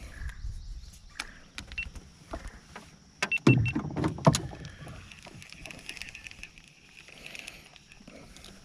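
Handling knocks in a small fishing boat: scattered clicks and a few heavier knocks and thumps about three to four and a half seconds in, with a faint insect buzz behind them.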